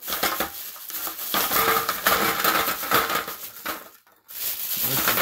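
Plastic mailer bag crinkling and rustling as it is pulled open, with rocks knocking against each other and onto a bench as they spill out. The sound drops out abruptly for a moment about four seconds in.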